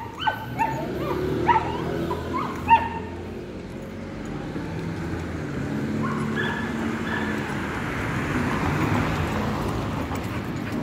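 A dog yipping in about half a dozen short, sharp yelps during the first three seconds. After that comes a steady rushing noise of a passing vehicle that swells and fades near the end.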